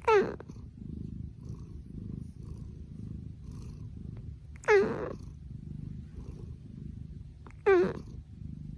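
A sleeping cat snoring: a steady low rumble, broken three times, about every three seconds, by a loud squeaky whine that falls in pitch.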